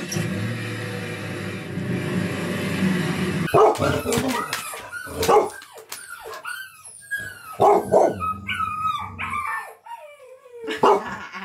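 Dog barking in a run of about five sharp barks with higher whining calls between them, after a steady noisy rush that stops about three and a half seconds in.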